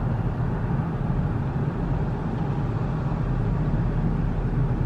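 Car driving slowly, heard from inside the cabin: a steady engine and road hum, with a deeper low rumble that strengthens about two seconds in.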